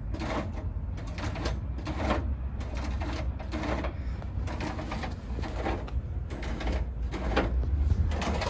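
The cable brake system of a 1949 Volkswagen Beetle, with its brake pedal being pumped: repeated light clicks and knocks from the pedal and cable linkage, about two a second, over a low steady rumble.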